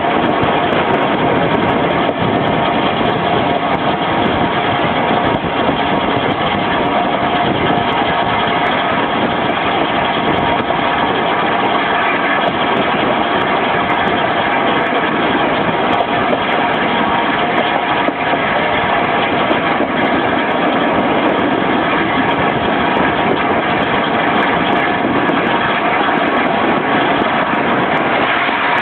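Steady running noise of a moving train hauled by the steam locomotive Tornado, an even rumble and rattle without a break.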